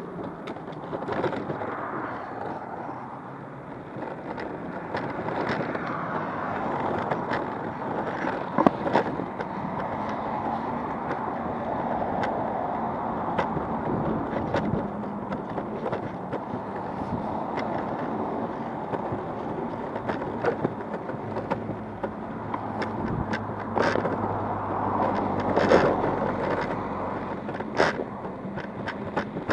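Backfire Ranger X2 all-terrain electric skateboard rolling along a paved road: a steady rolling noise from its wheels, with sharp knocks and clicks now and then. The loudest knocks come about nine seconds in and again near the end.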